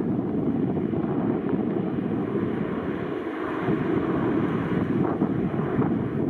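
Wind buffeting the microphone: a steady, gusty rumble.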